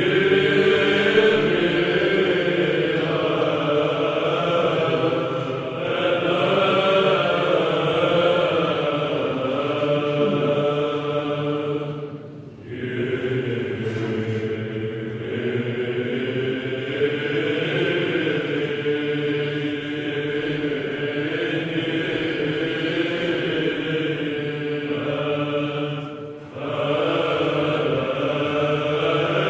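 Orthodox Byzantine chant: voices singing a slow melody over a steady held drone, with two short breaks between phrases.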